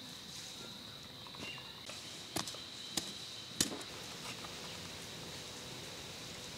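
Steady high-pitched insect drone, with three sharp knocks about half a second apart a little over two seconds in.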